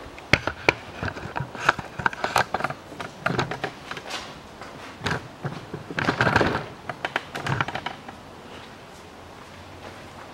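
A run of irregular light clicks and knocks, with a denser scraping clatter about six seconds in. This is handling noise of hands, tools and parts in a car's engine bay, and it dies down about eight seconds in.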